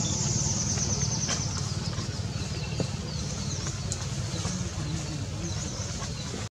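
A small engine running steadily, a low pulsing rumble, with bird chirps above it and a high rapid trill that stops about a second and a half in.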